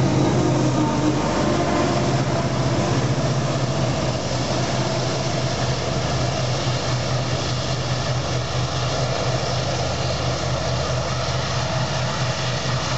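Diesel locomotives at the tail of a long freight train, running with a steady low engine drone and throb over wheel-on-rail noise as they pass and pull away, fading slightly.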